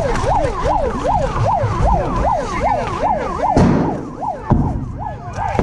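Siren yelping, its pitch sweeping rapidly up and down about two to three times a second, with rapid clicks and two heavy thumps in the second half.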